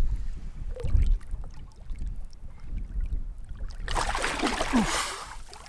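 Low rumble at first, then about four seconds in a loud splash lasting over a second as a released bull redfish kicks its tail at the surface and swims off from the angler's hands.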